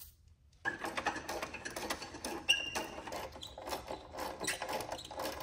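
Steel nut spun down the threaded rod of a truck battery hold-down bar, a rapid run of metallic clicks and scraping starting about half a second in, with a brief squeak midway.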